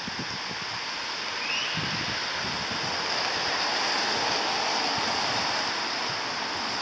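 Steady hiss of rain falling outdoors, with wind buffeting the microphone in a low flutter; the hiss grows a little louder about two seconds in.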